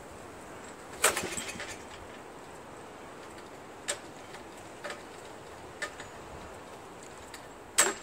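Hand work on a two-stage snowblower with its engine off: a sharp clack about a second in with a short rattle after it, a few light clicks, and another loud clack near the end.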